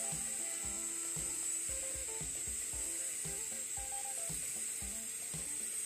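TIG welding by walking the cup: the ceramic cup rocks along the joint with a quick, slightly uneven clicking, about four clicks a second, over the arc's steady hiss. Background music with a light melody plays underneath.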